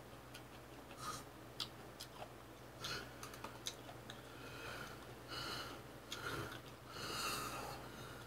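A person slurping and chewing black-bean noodles: scattered small mouth clicks and smacks, then three slurps in the second half.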